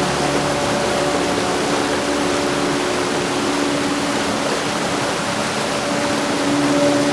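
Heavy rain falling steadily as a dense, even hiss, with a few faint, steady low tones underneath that fade in the middle and come back near the end.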